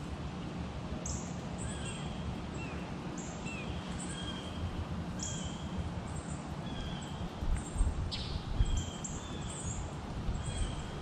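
Small birds chirping, short high calls repeated every second or so, over a low rumble of wind on the microphone that gusts about eight seconds in.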